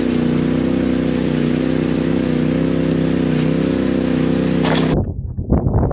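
Side-by-side UTV engine running with a steady drone under a hiss of tyre and wind noise, heard from on board while crawling over a rocky trail. It cuts off abruptly about five seconds in, replaced by a choppier, irregular sound.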